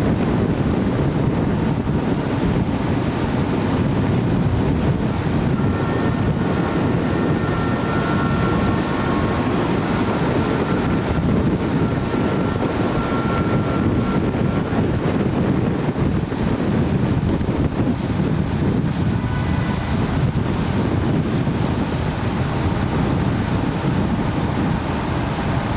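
Heavy rain and wind buffeting a camcorder's built-in microphone, a steady rumbling noise. A faint high steady whine, typical of a jet engine, sits on top of it for several seconds in the middle.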